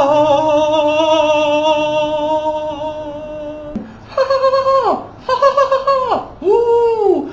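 A voice singing one long wavering note for almost four seconds, then three swooping vocal glides that rise briefly and fall away.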